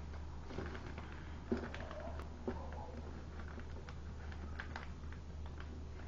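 Paper rustling and crinkling as an origami model is handled and creased, with small irregular ticks and a couple of sharper crackles, over a steady low electrical hum.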